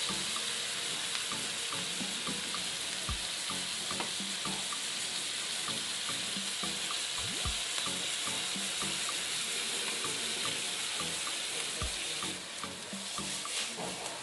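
Vegetables sizzling in an aluminium wok over a gas flame with fish sauce just added: a steady hiss that eases near the end, with a few soft knocks of the spatula.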